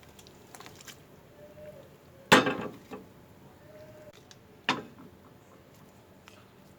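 Kitchen utensils being handled: two sharp knocks, the first the louder with a short ring after it, and a few light clicks in between.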